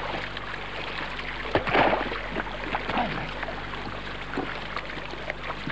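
Water sloshing and splashing in a shallow rock pool as dogs paddle and root about, with a louder splash about two seconds in, over a steady low hum.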